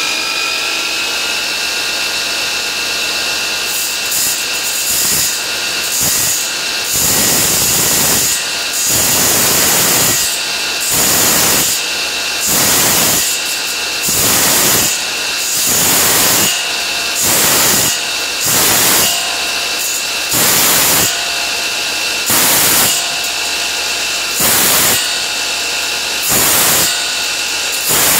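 DeWalt FlexVolt cordless 12-inch sliding miter saw running at full speed with a steady whine, its carbide-tipped wood-cutting blade cutting a titanium rod. From about four seconds in, the blade is fed into the rod in short repeated bites, each a harsh grinding hiss of up to a second, about every one and a half seconds.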